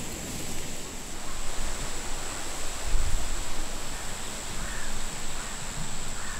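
Wind gusting over a grassy field and buffeting the microphone: an uneven rushing noise with low rumbling surges, the strongest about halfway through.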